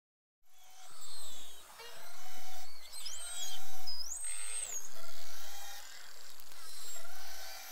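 Beluga whales calling underwater, heard through a hydrophone: a chorus of chirps and squeaky whistles over a low hum, with two clear rising whistles in the middle. It starts about half a second in.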